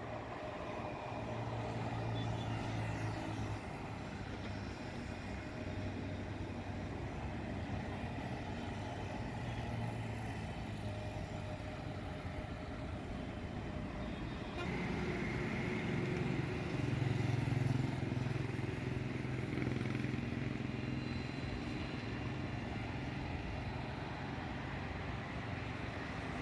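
Motorcycles and other road traffic passing close by, engines running over a steady background hum; the loudest pass comes a little over halfway through.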